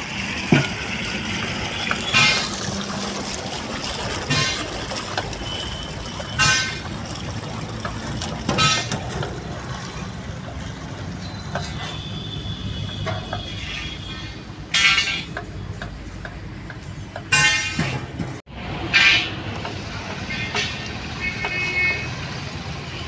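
Short vehicle horn toots every few seconds, over a steady rush of water from a hose flushing out a truck's diesel tank.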